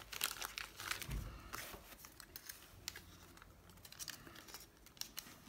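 Faint crinkling and many small ticks of paper and plastic packaging being handled, as model-kit decal sheets are taken out of their clear sleeve.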